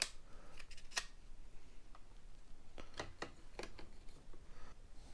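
Sharp clicks and light knocks of a plastic-and-metal motorcycle sat-nav mount and cradle being handled and fitted by hand. There are about eight separate clicks, the loudest right at the start and about a second in.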